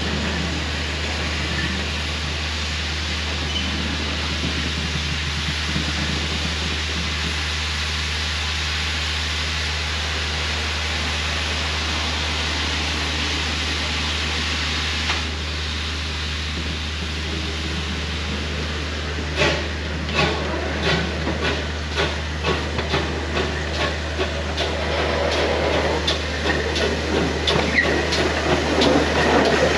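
Steam locomotive at a station, a steady hiss of steam at first. About two-thirds of the way through, a regular series of sharp beats starts and quickens slightly, growing louder toward the end.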